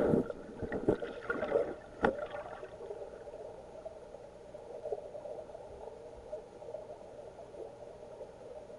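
Muffled flowing river water heard through a submerged camera's waterproof housing: a low, steady wash, with a few knocks and bumps of the housing in the first two seconds.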